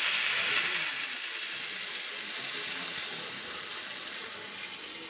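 Milk being poured into a hot iron kadhai of rice fried in ghee, hissing and sizzling as it hits the hot pan. The sizzle slowly dies down.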